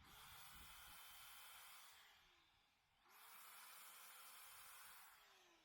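Faint small electric motor, run twice for about two seconds each time, spinning up, holding speed, then winding down, with a hiss.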